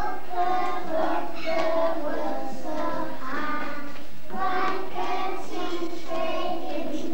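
A group of young children singing together, held notes in sung phrases with a short break between phrases about four seconds in.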